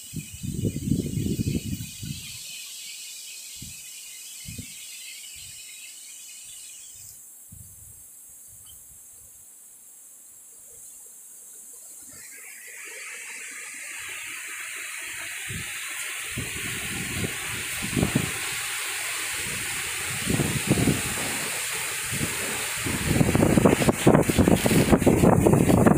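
Strong wind gusting in a rushing whoosh that builds from about halfway and grows steadily louder, with the wind buffeting the microphone in heavy low rumbles, most strongly near the end. A short gust rumbles on the microphone at the very start.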